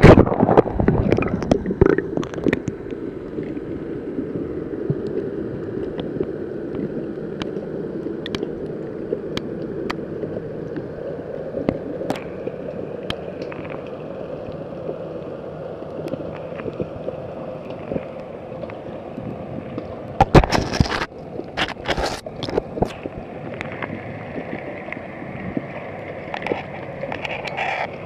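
Water rushing and gurgling around an underwater camera housing, muffled and steady. There is splashing in the first couple of seconds and a cluster of sharp knocks about twenty seconds in.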